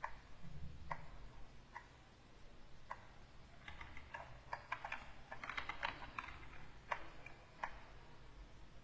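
Computer keyboard keys clicking: single clicks about a second apart, then a quick run of taps from about three and a half to six seconds in, then two more clicks.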